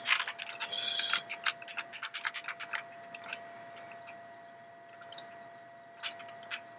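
Computer keyboard keys pressed in a quick run of clicks for about three seconds, then a few single presses near the end: the Start menu being worked from the keyboard because the mouse seems not to be working. A faint steady whine sits underneath.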